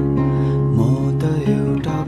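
Music: a song with guitar over steady held low notes.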